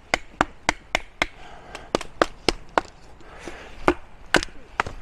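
Wooden baton striking the spine of a Fox Aruru folding knife, driving its blade through a piece of holm oak: sharp knocks about three a second, a short pause after about three seconds, then three more strikes.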